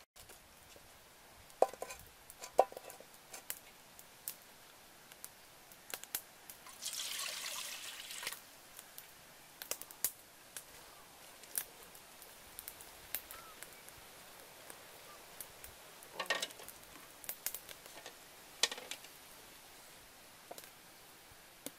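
Water poured from a metal pot into a cooking pot, a splashing rush lasting about a second and a half partway through, among scattered clinks and knocks of metal pots and utensils.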